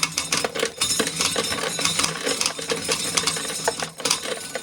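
Dry corn kernels rattling and clattering as ears of corn are shelled: a dense run of small hard clicks that thins out near the end.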